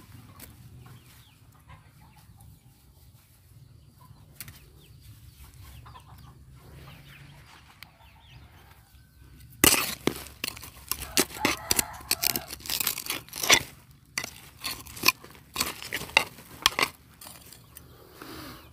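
A digging tool chopping and scraping into soil full of rubbish, in a quick irregular run of sharp strikes that starts about ten seconds in, after a quiet stretch.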